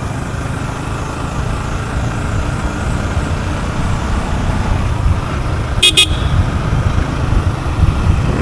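Steady low rumble of a motorcycle ride, with two short horn beeps in quick succession about six seconds in.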